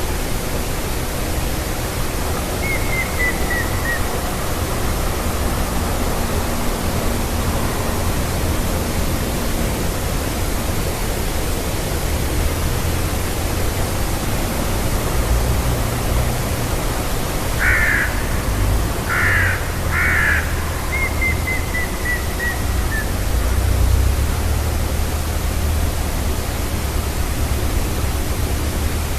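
Grey-headed woodpecker song: a short series of about seven clear notes falling in pitch, heard twice, a few seconds in and again about three quarters through. Three short, harsher sounds come just before the second series, all over a steady hiss and low rumble.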